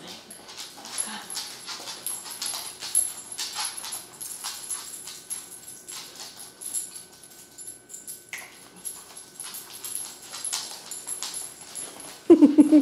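Dogs' claws clicking and tapping irregularly on a hardwood floor as an Amstaff and a small chihuahua move about, with a short loud vocal sound near the end.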